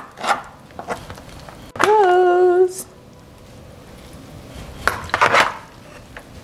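A metal serving utensil clinks and scrapes against a plastic tub of raw beef chunks, with a louder clatter about five seconds in. About two seconds in, a person briefly hums one held note.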